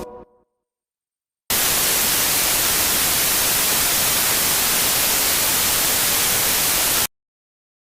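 Loud white-noise static, starting abruptly about a second and a half in and cutting off sharply some five and a half seconds later, between stretches of dead silence.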